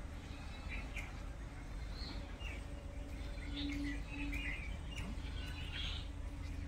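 Outdoor country ambience: scattered short bird chirps and calls over a steady low rumble, with a faint hum in the background.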